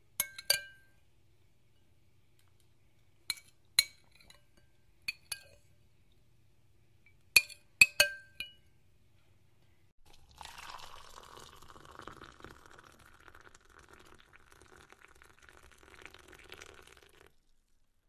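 Glassware clinking about ten times in small clusters, each clink ringing briefly. This is followed in the second half by a steady rushing noise lasting about seven seconds.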